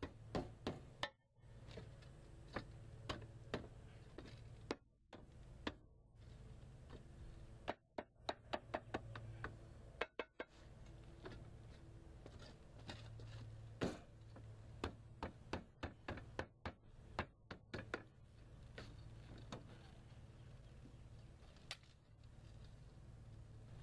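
Hammer tapping a lead flashing skirt into shape over concrete roof tiles: sharp light taps, several a second, in short runs with pauses between.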